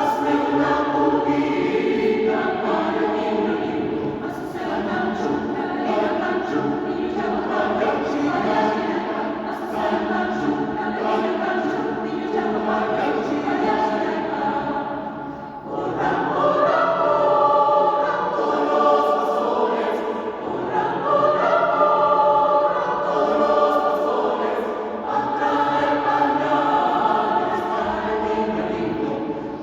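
Choir singing a traditional Peruvian villancico (Christmas carol) in parts. The voices pause briefly about halfway, then come back fuller and louder.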